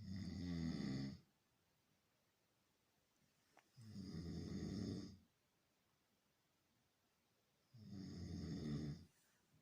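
A sleeper snoring: three long snores of about a second each, coming roughly every four seconds.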